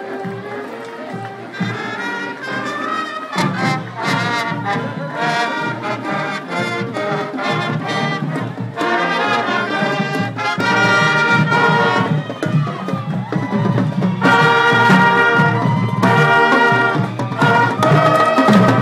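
Middle-school marching band playing as it marches past: trumpets and other brass carry the tune over snare and bass drums keeping the beat. It grows louder in the last few seconds as the brass comes close.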